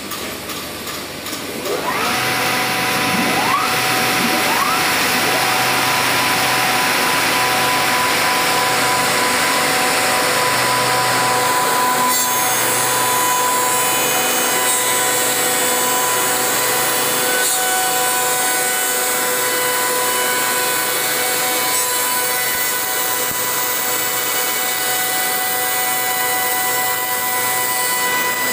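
Four-sided moulder's spindle motors starting one after another, each rising in pitch, then running with a steady whine. About twelve seconds in, a wooden board meets the cutter heads, and the planing adds a loud, harsh cutting noise over the whine.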